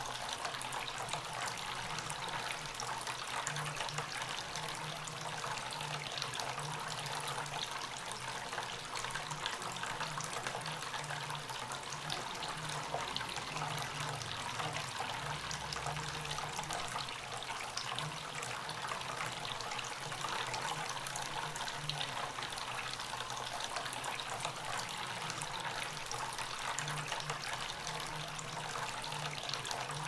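Tabletop water fountain running: a thin stream of water pours steadily from a spout into a water-filled bowl, a continuous trickling splash that stays even throughout.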